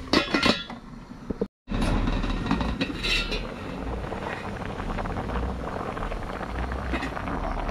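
Metal pot lid clinking against the rim of the pot as it is handled and lifted, with a second clink about three seconds in. Between the clinks, broth is boiling steadily in the pot.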